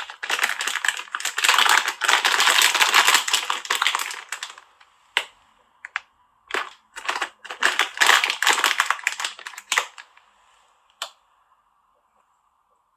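Dry crackling and rustling of hands working with coarsely crushed almonds, dense for the first four seconds or so, then in shorter bursts, with a last click near the end.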